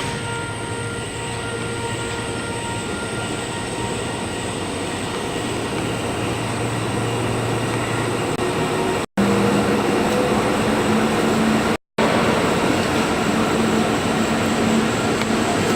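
Towing-tank carriage running along its rails, a steady mechanical rumble with a few held whining tones. The sound drops out briefly twice, about nine and twelve seconds in, and is louder after the first break.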